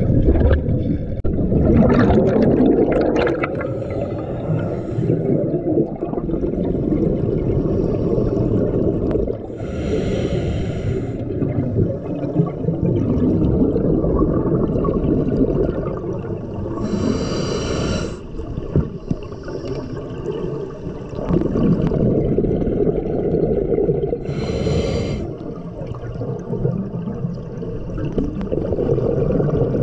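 Scuba diver breathing through a regulator, heard underwater through a camera's waterproof housing: three hissing inhalations about seven seconds apart, with a continuous low rush and gurgle of exhaled bubbles and water between them.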